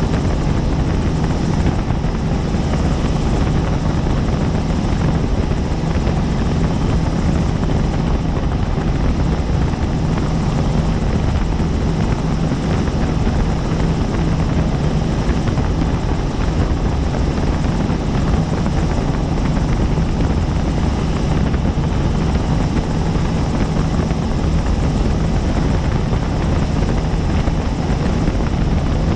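Helicopter in flight: the steady, loud drone of its rotor and engine, unchanging in level.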